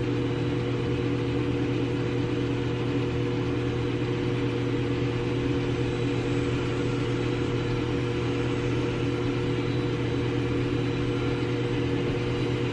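Steady low hum of a running motor or fan, holding several fixed pitches over a faint hiss, with no change in level.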